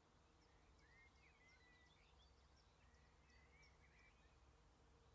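Very faint bird calls: scattered short chirps and whistled notes over a low background rumble, at near-silent level.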